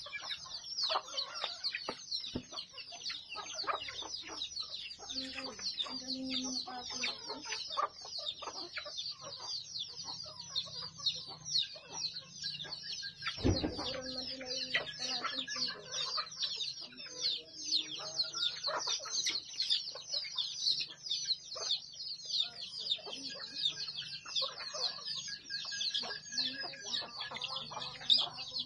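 Backyard chickens feeding: hens clucking in short calls over a constant dense, high-pitched chirping. A single sharp knock about halfway through.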